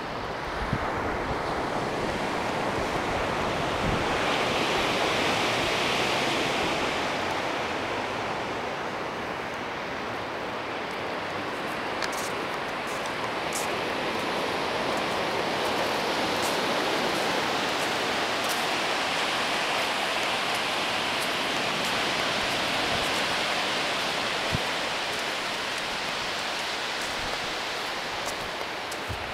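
Ocean surf washing onto a sandy beach: a steady hiss of waves that swells and eases slowly, with two broad swells.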